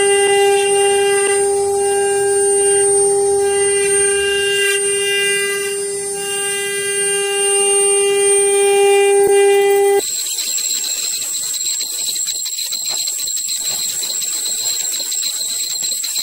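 An eight-spindle 4-axis rotary CNC router running its spindles and cutting, a steady, loud machine whine. About ten seconds in, the sound cuts abruptly to a higher, thinner whine with a hiss.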